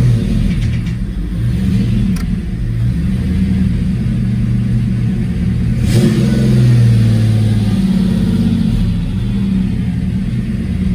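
Fox-body Ford Mustang engine running and being revved from the gas pedal, its pitch climbing about six seconds in and then dropping back: the new throttle cable being tested.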